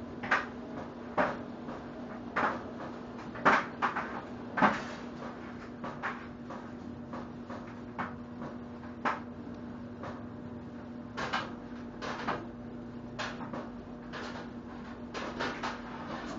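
Newborn puppies suckling at their mother: irregular short clicks and smacks, more frequent and louder in the first five seconds, then sparser.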